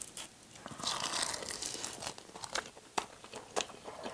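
A crisp sheet of roasted seaweed (gim) crinkles and crunches about a second in as it is wrapped around rice and bitten, heard up close. Scattered small chewing clicks follow.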